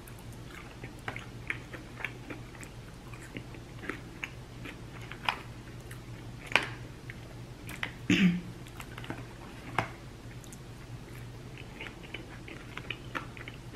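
Close-up eating sounds: wet chewing and biting of food, with scattered sharp mouth clicks and smacks, and a brief murmur from the eater about eight seconds in.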